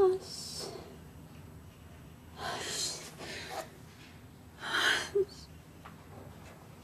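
A woman's pained gasps and sharp breaths as she presses a bruise on her forehead: a short voiced cry at the start, then two breathy gasps about two and a half and four and a half seconds in, the second ending in a brief voiced catch.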